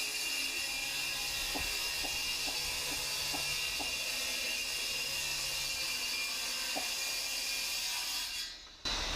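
Circular saw making one long, steady cut through a wooden ramp piece, its blade set shallow so it just bites into the grass beneath; the cut runs evenly and the saw stops near the end.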